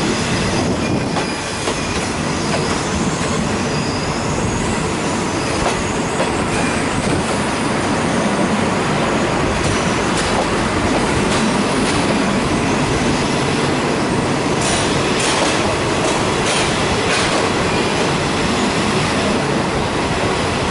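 Thai passenger train running along the track, heard from the carriage window: a steady rumble and rush of wheels on rails, with a few sharp clacks in the last quarter.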